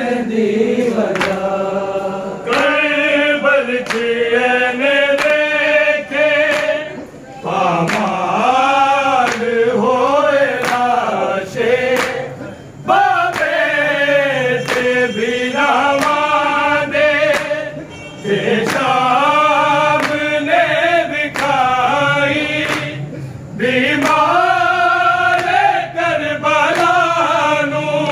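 A group of men chanting a Punjabi noha, a Shia mourning elegy, in unison and without instruments. It goes in sung phrases of about five seconds, each broken off by a short pause for breath.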